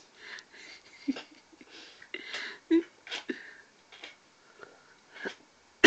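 A person drinking soft drink straight from a plastic bottle: irregular gulps, swallows and breaths, with a sharp knock right at the end.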